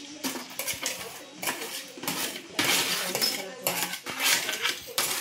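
Lumps of charcoal being moved back with a metal tool: a run of clinks, knocks and scrapes, with a longer rasping scrape near the middle.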